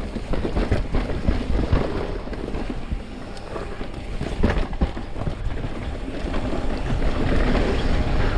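Wind rushing over the microphone and mountain-bike tyres rolling on a dirt trail, with frequent short clicks and knocks as the bike rattles over bumps. The rushing grows louder and steadier near the end as the bike picks up speed.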